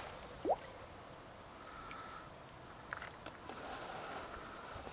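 Faint lapping of shallow lake water as a carp is released from the hands, with one short rising squeak about half a second in and a few faint ticks around three seconds.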